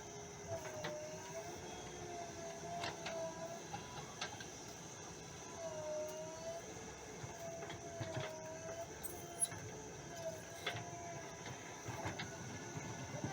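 JCB backhoe loader running and working, its engine and hydraulics making a steady hum whose pitch dips and recovers several times as load comes on, with a few sharp knocks from the working gear.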